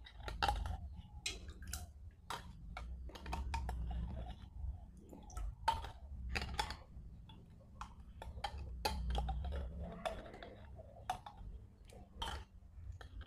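Irregular clicks, taps and small splashes as pickled plums are shaken and scooped from a plastic jar and drop one by one into a pot of water, over a low steady rumble.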